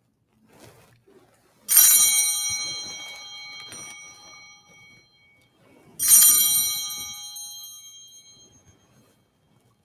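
Sanctus bell (altar bell) rung twice, about four seconds apart, each ring bright and fading away over two to three seconds. The bell marks the consecration and elevation of the chalice at Mass.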